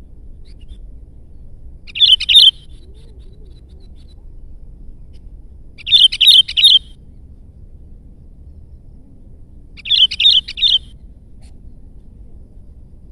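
Sooty-headed bulbul (kutilang) singing: three short phrases of three or four quick, bright notes, about four seconds apart.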